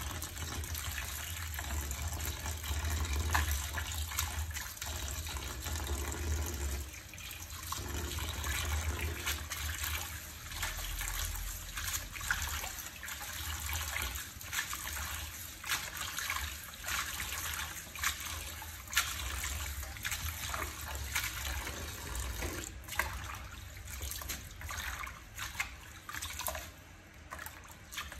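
Kitchen tap running into a plastic basin of leafy greens while a hand swishes and rinses them, with frequent small splashes.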